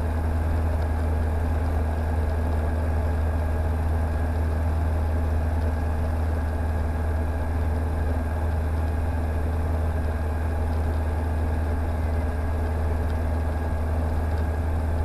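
CSA PS28 Cruiser light aircraft's Rotax 912 flat-four engine idling steadily with the propeller turning, heard from inside the cockpit; the sound is even and mostly low-pitched.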